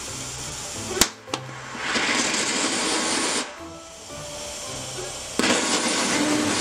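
Small 3D-printed ceramic rocket engine burning propane and oxygen, firing in two short hissing bursts of about a second and a half each, after a sharp crack about a second in.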